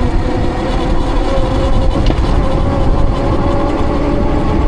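Riding noise from a RidstarQ20 on a wet road: wind rushing over the microphone and tyre hiss, with a steady hum that rises slightly in pitch.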